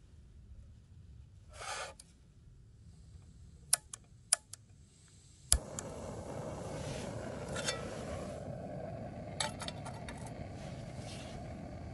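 Canister gas camping stove: two sharp metal clicks as its pot-support arms are swung out, then a click from the piezo igniter about five and a half seconds in and the burner lights with a steady hiss of burning gas. A few light metallic clinks come over the flame later.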